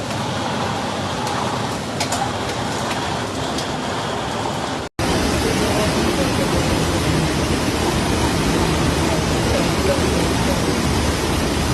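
Heavy storm rain and running water making a dense, steady hiss. It cuts off abruptly about five seconds in and comes back louder.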